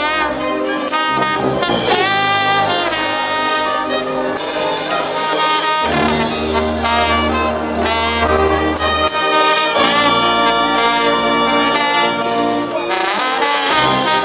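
A brass-and-wind banda orquesta playing an instrumental cumbia passage. Horns carry the melody over a steady dance beat, with a held low bass note about halfway through.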